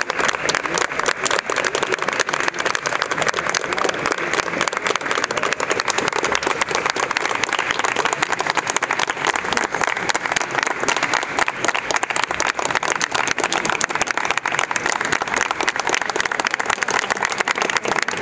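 A crowd clapping steadily: sustained applause made of many quick, overlapping hand claps.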